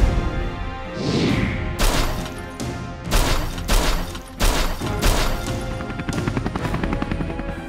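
Dubbed-in battle sound effects over background music: a series of sharp blast and impact hits, about half a dozen between about two and five seconds in.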